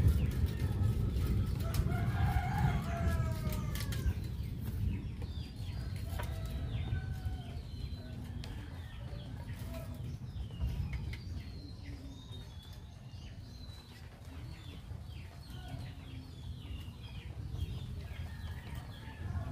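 A rooster crows once, about two seconds in, a single rising-then-falling call; scattered short clucks and chirps follow, over a steady low rumble.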